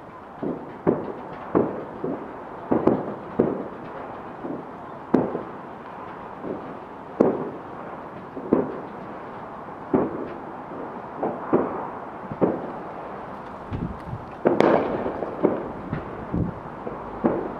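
Fireworks going off: a run of sharp bangs, about one or two a second, each with a short echo, then a louder, denser volley of bangs about fourteen seconds in.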